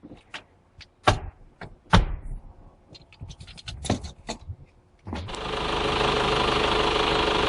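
A few knocks and clicks, then about five seconds in the Hyundai Tucson's 2.0 CRDi D4EA diesel engine starts and runs steadily, freshly fitted with a new in-tank fuel pump. The sound cuts off suddenly.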